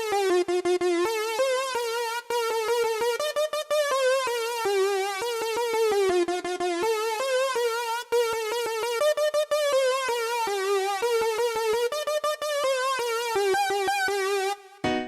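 Synthesizer lead keyboard playing a cumbia melody one note at a time, with a strong, even vibrato and short clicks at many note starts. Just before the end, a different, fuller keyboard sound comes in with short chords.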